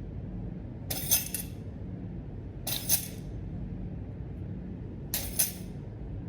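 Three short, crisp bursts of bright, clinking noise, each about half a second long and about two seconds apart, over a steady low hum.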